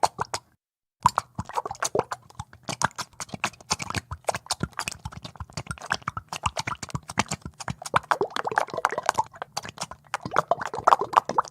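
Thick oil bubbling in water: a rapid, uneven run of wet plops and pops, with a short silent break about a second in.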